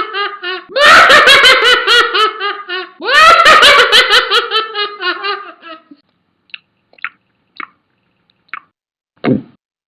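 A character's laugh sound effect: a rapid, pulsing laugh that falls in pitch, played twice in quick succession. After it stops, a few faint short clicks and a brief low thump follow.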